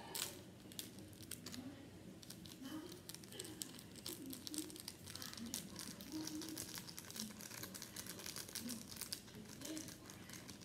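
Small instant-ramen seasoning packet crinkling and tearing as it is worked open by hand, with many quick small crackles.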